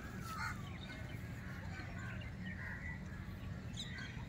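Quiet outdoor ambience: faint, scattered bird chirps over a steady low rumble of background noise.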